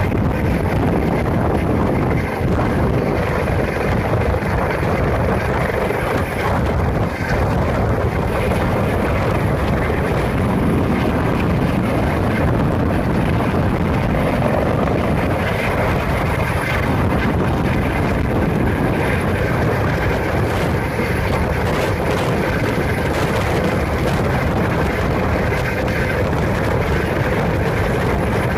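Helicopter rotor and engine noise, a loud steady drone.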